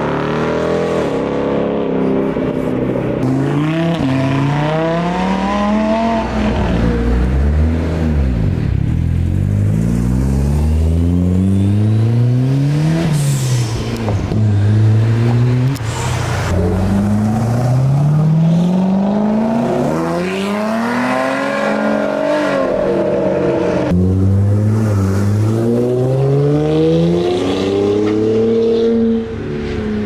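A Ford Mustang and other sports cars accelerating hard one after another. Each engine climbs in pitch through the gears and drops at every upshift.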